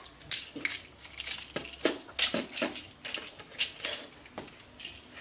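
A small plastic packet being handled and opened: a quick, irregular run of sharp crinkles and clicks, with a few fuller knocks about a second and a half in.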